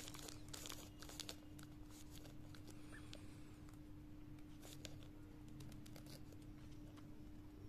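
Faint plastic clicking and rattling of a Gear Pyramix puzzle as its layers are turned by hand, the clicks bunched in the first second and a half and again about five seconds in. A steady hum runs underneath.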